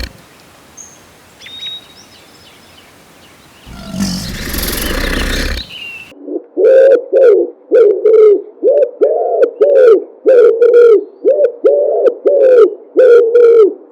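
Animal calls: a loud, rough, noisy call lasting about two seconds, starting about four seconds in, then a quick run of short, loud calls, each rising then falling in pitch, a little under two a second.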